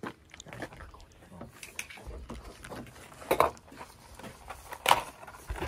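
Small clicks and rustles of a box of pistol cartridges and a magazine being handled on a wooden bench, with two sharper clacks about three and a half and five seconds in.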